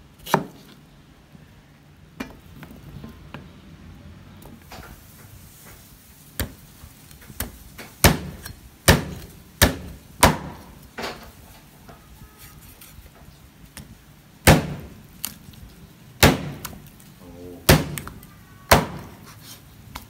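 Large kitchen knife chopping raw pork ribs on a wooden chopping board: a dozen or so sharp, irregular chops, coming faster and louder from about eight seconds in.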